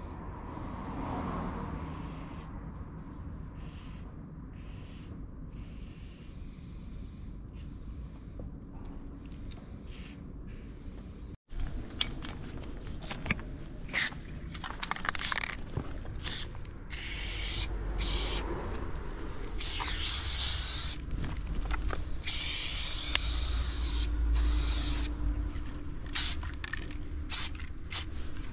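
Aerosol acrylic spray paint can spraying onto a wall in hissing bursts, some short and some long, with brief pauses between them. The bursts are fainter at first and louder and closer from about eleven seconds in.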